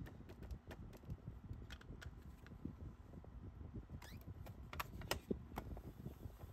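Faint taps and clicks of a clear acrylic stamp being dabbed on a Distress Oxide ink pad and then set down and pressed on card stock in a stamping platform, with light handling of plastic and paper; the sharpest clicks come about four to five and a half seconds in.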